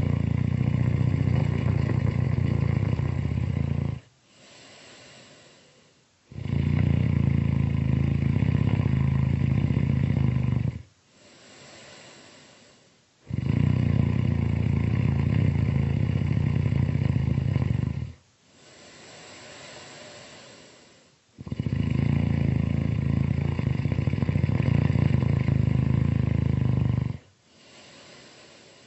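Really loud snoring: four long, buzzing snores of about four to five seconds each, spaced about seven seconds apart. Between them come quieter, breathy breaths.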